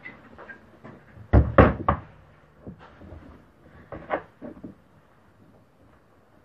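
Small pieces of wood being handled and knocked against each other and the wooden workbench: a few sharp wooden knocks and clatters, the loudest a quick cluster about a second and a half in and another around four seconds.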